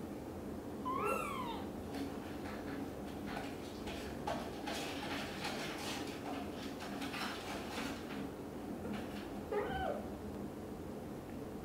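Young British shorthair kitten mewing: two short high-pitched mews that rise and fall, about a second in and again near the end.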